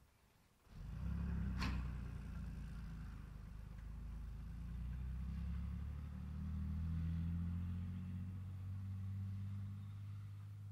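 Diesel engine of a Maharashtra State Transport bus pulling away, a low steady rumble that comes in about a second in and runs on as the bus drives off, with one short knock just after it starts.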